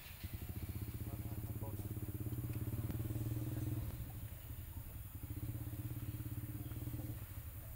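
A small engine running at a low, steady pitch in two spells. The first lasts about three and a half seconds, then there is a short lull, and it comes back for about two seconds.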